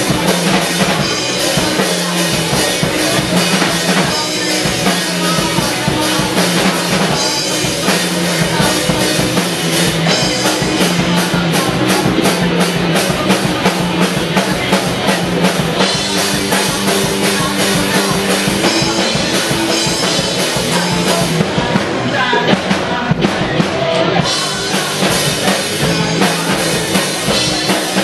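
Rock band playing a song with a full drum kit, with regular cymbal strokes partway through.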